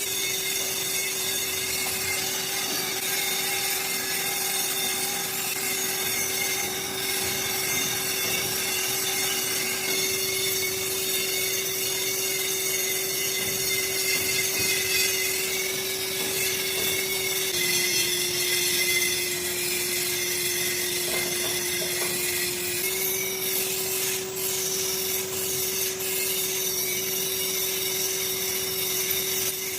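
Workshop machine tool running steadily, with a constant motor hum under a continuous scraping, cutting noise. The hum drops slightly in pitch for several seconds past the middle, then comes back up.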